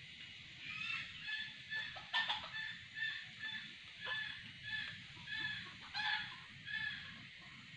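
Red junglefowl calling: a run of about a dozen short, high calls, roughly two a second, with a sharp click about two seconds in.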